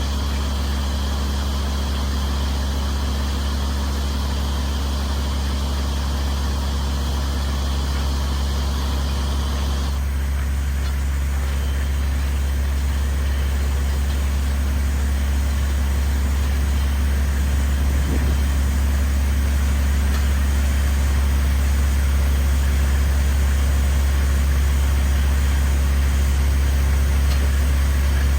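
The engine of a water-well drilling rig running steadily at constant speed, a loud low drone. A higher hiss over it drops away about ten seconds in.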